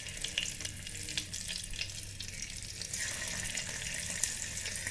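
Paneer cubes sizzling and crackling as they fry in hot mustard oil in an electric kettle. The sizzle gets louder about three seconds in.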